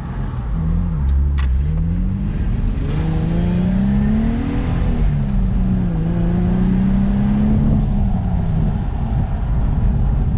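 Infiniti G35's 3.5-litre V6 accelerating: the engine note climbs for a few seconds, drops back about halfway through, then holds steady and eases off near the end.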